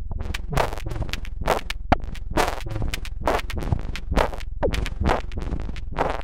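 Electronic rhythm built from a Behringer UB802 mixer's own noise at high gain and the feedback of its aux send/return loop, chopped into a sequence of short noisy, partly pitched hits by an Elektron Octatrack. There are about two hits a second with lighter ones in between, over a steady low hum.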